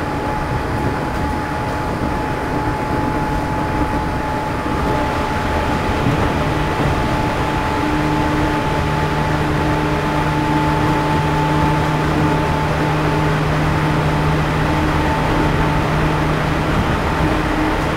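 Running sound of a JR East 211-series electric train heard aboard motor car MoHa 211-1, whose traction motors have outer cooling fans: steady motor and gear whine at constant pitch over rail and wheel noise while the train holds its speed. It gets a little louder about six seconds in.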